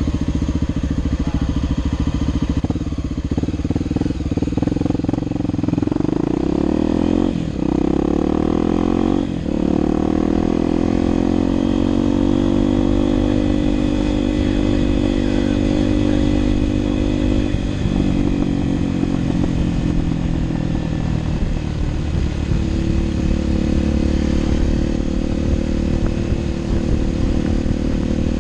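Motorcycle engine idling at a stop, then pulling away about six seconds in and revving up through the gears, with a short dip at each shift (twice in quick succession, then again later), before settling into a steady cruise.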